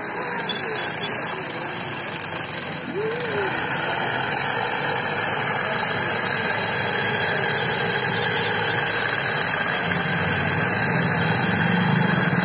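Small electric motor of a wooden thread-winding machine running steadily, spinning a spool as plain kite string (saddā) is wound onto it. It gets louder about three to four seconds in and then holds steady.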